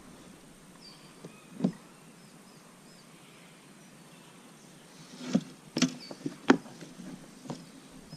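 Scattered sharp knocks and clunks of gear against a kayak: one at about a second and a half in, then a quick run of several from about five seconds in. Faint bird chirps sound behind them.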